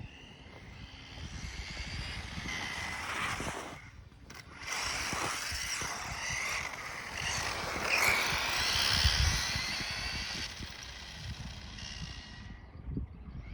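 Kyosho Raider electric RC buggy driving at speed, its motor and geartrain whining as it comes and goes; the whine swells, drops briefly about four seconds in, rises again to its loudest past the middle and fades near the end. The gearbox, with Teflon shims fitted to the counter gear, is on its test run.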